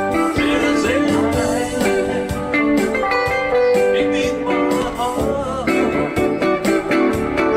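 Guitar-led music from a live performance of Samoan songs, with plucked and gliding guitar notes over a steady beat.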